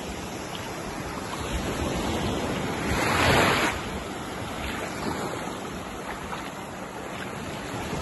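Small sea waves breaking and washing up a sandy beach, with one louder surge of surf about three seconds in.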